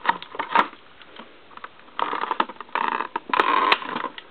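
Plastic blister packaging crackling and crinkling while tape is pulled off its sides: a few sharp clicks, a short lull, then dense crackling from about two seconds in.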